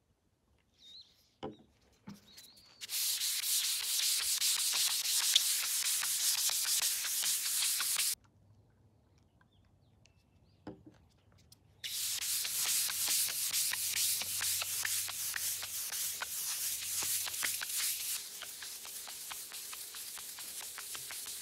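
A small white hand pad rubbed back and forth over a walnut tabletop, working in a drip-applied wood finish: a steady scratchy rubbing in two stretches, the first ending about a third of the way in and the second starting about halfway through, growing softer near the end.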